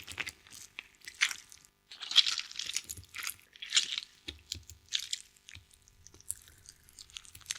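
Horror sound effect of organ handling: a series of irregular bursts, roughly one a second, the loudest a little after two seconds in.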